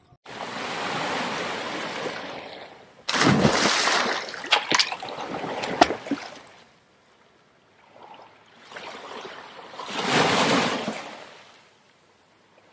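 Water sound effects for an animated logo: a rushing surge, then a sudden loud splash about three seconds in with spattering crackles, then another wave-like surge that peaks near ten seconds and fades.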